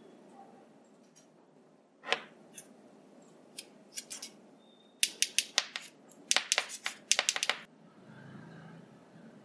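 Small hard clicks from a plastic neckband earphone and its earbuds being handled: a few separate clicks, then a quick run of sharp clicks between about five and seven and a half seconds in, followed by faint rustling.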